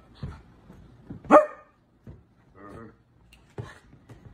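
Small curly-coated dog barking: one loud, sharp bark about a second and a half in, then a few quieter barks.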